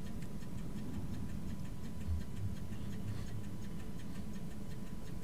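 Quiet room tone: a steady low hum with a faint thin tone above it and faint, regular ticking.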